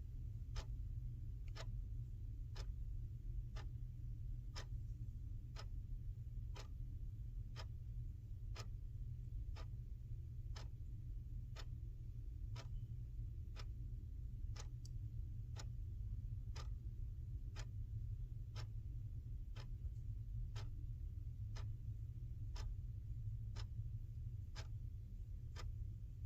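A clock ticking steadily, about one tick a second, over a faint low hum.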